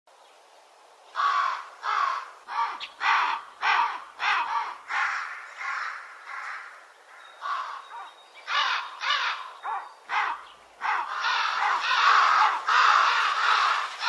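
A flock of birds giving harsh, raspy calls, one after another, starting about a second in. The calls crowd together into continuous overlapping chatter for the last few seconds.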